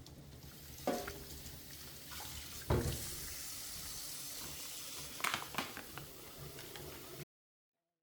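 Tap water running into a sink, with three knocks of things set down or handled in it; the sound cuts off suddenly near the end.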